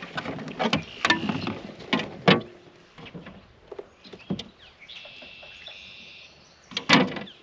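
A quick run of sharp knocks and clatter against a plastic kayak as a small largemouth bass is handled on board, with one more loud knock near the end. A bird calls briefly about five seconds in.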